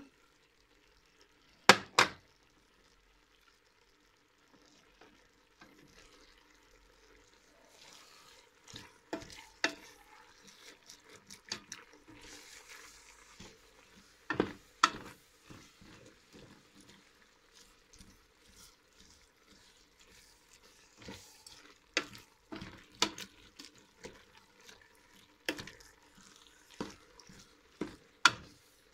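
Wooden spoon stirring spinach and cuttlefish in a stainless-steel pot, with irregular knocks and scrapes of the spoon against the pot over a faint sizzle of the food cooking. Two sharp knocks come about two seconds in.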